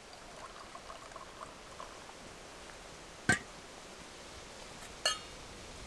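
Tea pouring from a small stainless-steel teapot into a steel camping mug in the first couple of seconds, then a sharp metal knock as the teapot is set down on a steel pan lid, and a ringing metal clink near the end.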